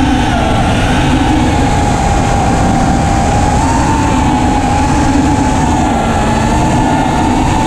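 FPV racing quadcopter's brushless motors and propellers whining at a fairly steady throttle, heard from the onboard camera over a dense rush of wind noise.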